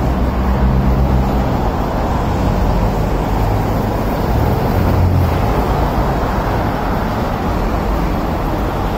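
Road traffic on a busy city avenue: a steady rush of cars driving past, with a low engine hum from a passing vehicle swelling about four to five seconds in.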